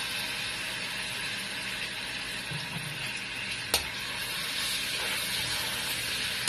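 Minced garlic sizzling in hot oil in a wok as it is stirred with a plastic spatula, a steady frying hiss. A single sharp knock a little under four seconds in.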